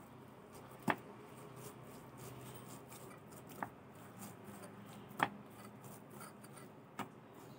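Quiet handling sounds of hands kneading soft peda dough greased with ghee, broken by four short, sharp taps spread a second or two apart.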